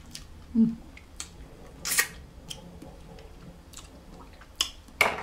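Snow crab legs being picked apart with a seafood fork: scattered sharp clicks and snaps of shell, the loudest about two seconds in. A short hum of voice about half a second in.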